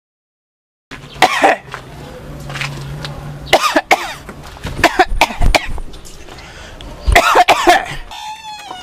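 A person coughing in harsh, loud fits: several separate bouts of hacking coughs a second or two apart, starting about a second in.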